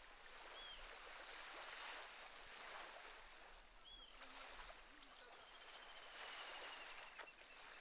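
Faint wash of small waves lapping on a rocky shore, swelling and easing slowly, with a few short, high bird chirps.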